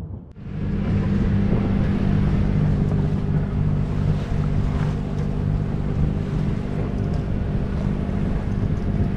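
A sailboat's engine running steadily while motoring, a constant low drone with a wash of water and wind noise over it.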